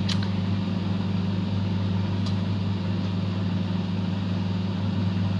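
Microwave oven running with a steady low hum, a single faint click about two seconds in.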